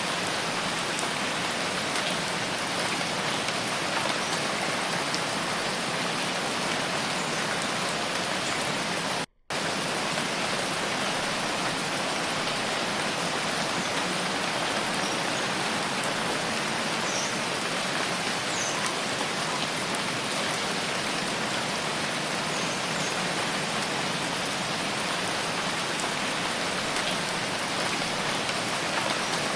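Steady rain falling: an even hiss with faint scattered drop ticks. The sound cuts out completely for a split second about nine seconds in.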